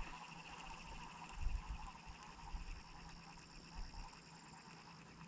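Faint steady insect chorus, a fast pulsing trill with a higher steady note that cuts off near the end, with a few dull low thumps about a second and a half in.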